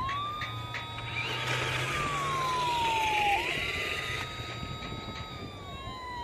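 Fire-engine wail siren from an RC model fire truck's sound module. It rises fast, holds high, then slides slowly down, twice, over a low steady hum, with a hiss for a couple of seconds in the middle.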